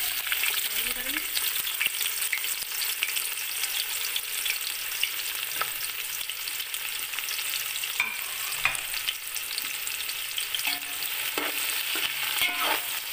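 Sliced onions frying in hot ghee, the sizzle starting abruptly as they are tipped into the pot, with scattered crackles throughout and a few knocks later on.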